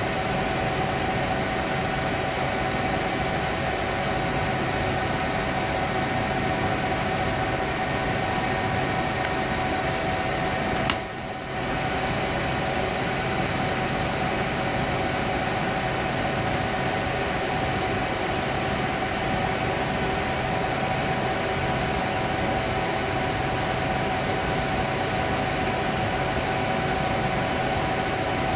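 Steady mechanical hum with a few constant mid-pitched tones in it, unchanged throughout. About eleven seconds in there is a single sharp click, and the hum dips briefly after it.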